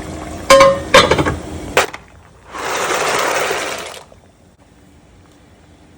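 Metal cookware clinking and knocking several times, with short ringing tones, then about a second and a half of steady hissing noise that cuts off.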